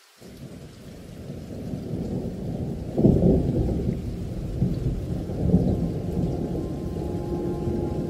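Deep rolling rumble of thunder that swells up from near silence, loudest about three seconds in, with further rolls after it. Faint musical tones begin to come in near the end.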